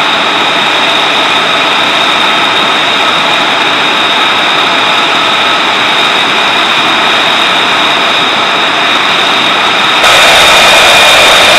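F-35 Lightning II's F135 turbofan engine running at ground idle during hot-pit refueling: a steady roar with a high, even whine on top. About ten seconds in it becomes louder and brighter.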